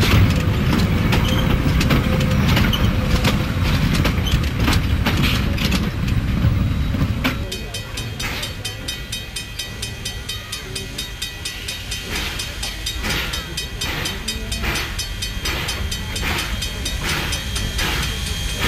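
A train of railway carriages and wagons rolling past, a low rumble with wheels clicking over the rail joints. About seven seconds in it cuts to a quieter steam locomotive standing close by, with a steady hiss and a slow, regular beat.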